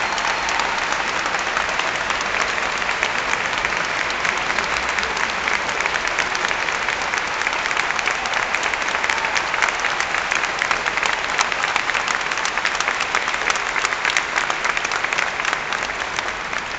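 Concert audience applauding: dense, steady clapping that carries on without a break.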